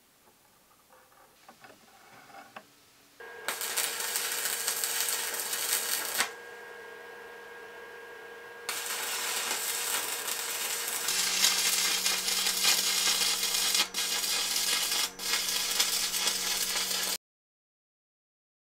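Arc welding on steel rods: the arc crackles and hisses in two long runs, one of about three seconds and then, after a short pause with a steady hum, one of about eight seconds. Before the welding, faint light clicks of the metal rods being handled.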